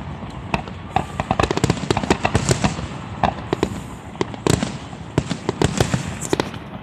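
Aerial fireworks display: a dense, irregular barrage of shell bursts, several sharp bangs a second, with one of the loudest about four and a half seconds in.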